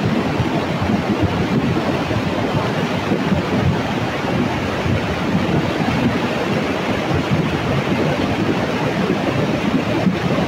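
Flooded river rushing past in a fast, muddy torrent: a loud, steady churning roar of water.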